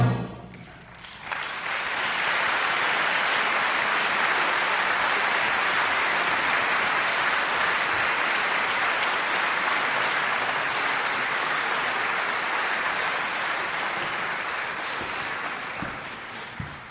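The band's final chord dies away in the hall, then the audience breaks into applause about a second in, holds steady, and fades near the end.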